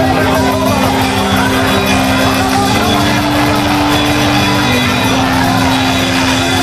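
Gospel worship music instrumental intro, with sustained chords and a steady full band sound.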